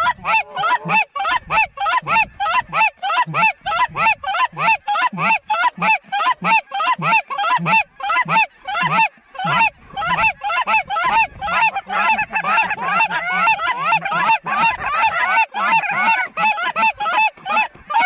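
Goose call blown by a hunter in a fast, steady run of about four honks a second, over a large flock of geese calling overhead whose calls grow thicker in the second half. The calling works the circling flock in toward the decoys.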